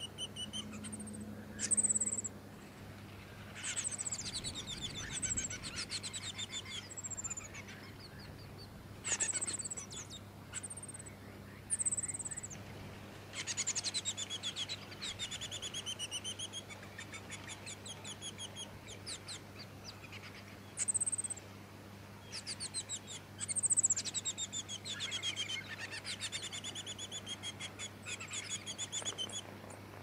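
Black-backed fairywrens (Malurus splendens melanotus) calling at a nest with nestlings: very high, sharp chips and fast trills of repeated notes, several trills sliding down in pitch, coming in bursts.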